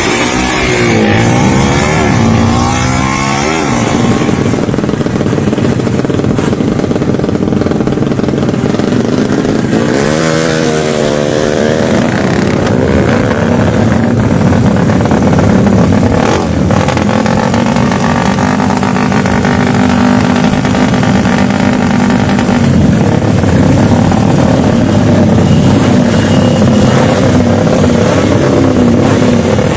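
Motorcycle engines running loudly, revved repeatedly with the pitch sweeping up and down about a second in, again about ten seconds in and near the end.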